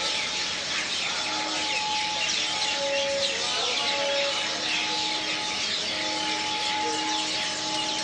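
Dawn chorus of many birds chirping densely and continuously from a tree, with a faint steady tone underneath.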